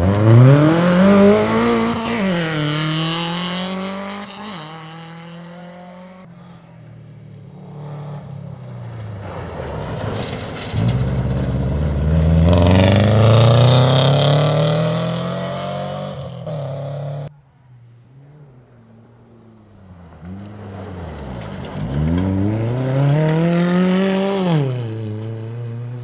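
Rally cars passing one after another at speed on a gravel stage, Subaru Imprezas among them: each engine revs up hard, drops at gear changes and fades. Three passes, the second cutting off suddenly.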